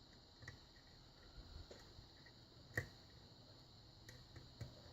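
A few faint, sharp clicks of a lock pick working the pin stacks of a Russwin six-pin lock, the clearest just under three seconds in.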